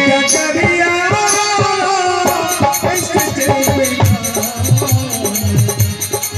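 Indian song: a man singing a melody over percussion with a steady shaker rhythm.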